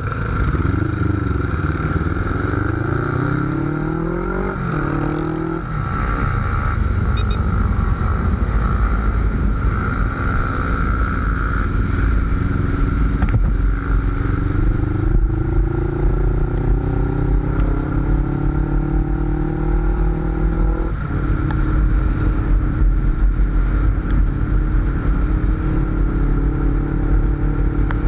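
Suzuki GS500's parallel-twin engine pulling away from a stop and accelerating up through the gears: the engine note rises in each gear and drops at each upshift, then settles into a steady run at cruising speed for the last several seconds.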